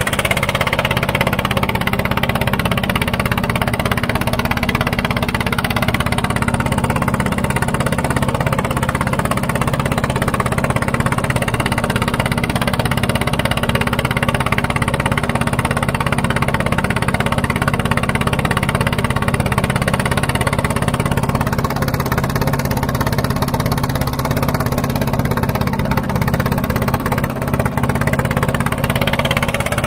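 Motorboat engine running steadily at constant speed, a continuous low drone with no change in pace.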